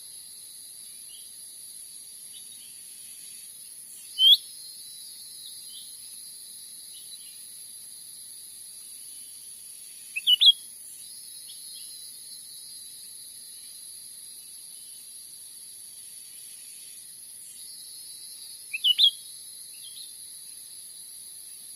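Cucak ranting calling in three short bursts of sharp chirps, about 4, 10 and 19 seconds in, the last two each a quick run of two or three notes. Under them runs a steady high insect drone.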